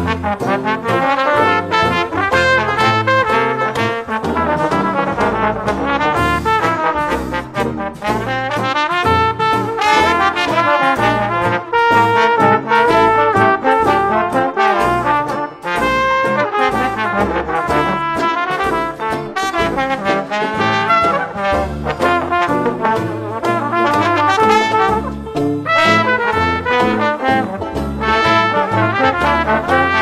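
Traditional New Orleans-style jazz instrumental with brass playing, trumpet and trombone up front over a steady beat.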